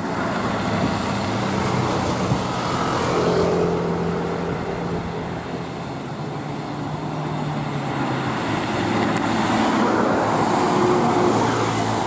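Road traffic dominated by a heavy diesel fuel tanker truck driving up and past, its engine note stepping in pitch a few times, with other cars and motorbikes going by.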